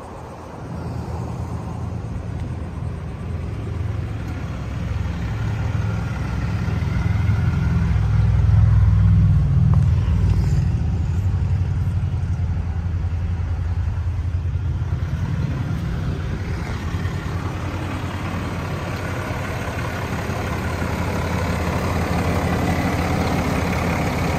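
Ram 3500 pickup's engine idling steadily, growing louder over the first several seconds and loudest about nine seconds in.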